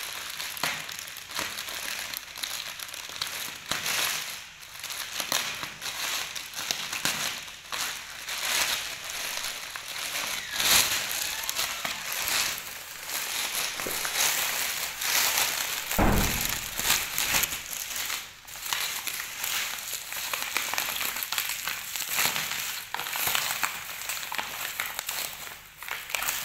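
Plastic mailer bag and bubble wrap crinkling and crackling continuously as a parcel is torn open and handled, with foil sachets rustling inside. One dull thump about two-thirds of the way through.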